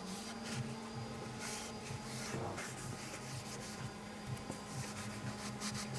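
A rag wiping over a wooden covering board with thinner before varnishing: soft, repeated rubbing strokes.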